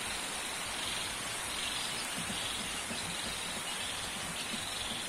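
Steady light drizzle falling, an even hiss of rain.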